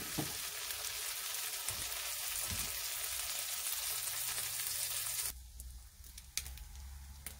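Butter sizzling in a stainless steel frying pan as a slice of egg-soaked bread fries. About five seconds in it drops suddenly to a fainter sizzle with scattered pops.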